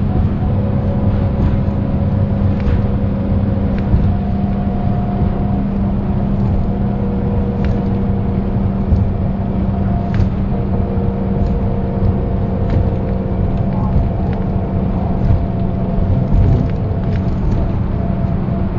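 Mercedes-Benz O408 bus underway, heard from on board: its OM447hLA turbocharged six-cylinder diesel runs steadily. Thin drivetrain gear whines come and go and shift in pitch, and short rattles and clicks recur every few seconds.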